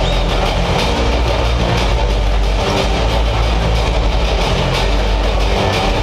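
Pregame intro soundtrack blasting over an arena PA system: a loud, deep bass rumble under music, echoing through the arena. The deep rumble eases near the end.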